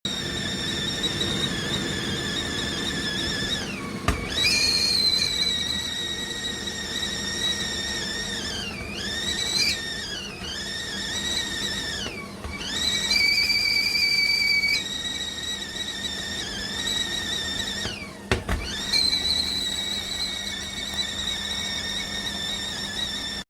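Stainless steel tea kettle whistling at the boil: a loud, high whistle whose pitch wavers and dips several times. Two brief knocks come about four seconds in and about eighteen seconds in.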